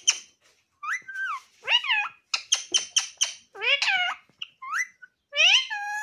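Pet ringneck parakeet calling: short, high squawks and chatter in quick bursts, some sweeping up in pitch and some falling, with a rapid run of short notes about two and a half seconds in.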